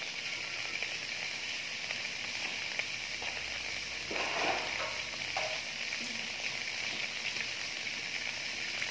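Red chillies frying in a wok, a steady sizzle.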